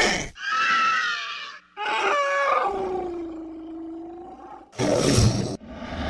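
Monster vocal sound effects, one after another: a short pitched cry, then a longer call that drops in pitch and holds steady for about two seconds, then a rough, noisy roar about five seconds in.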